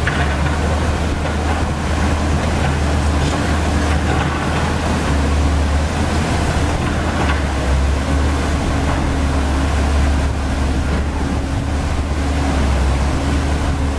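Komatsu PC130F-7 excavator's diesel engine running steadily with a deep low drone and a hum that comes and goes as the boom and bucket move, over the rush of river water pouring across the weir.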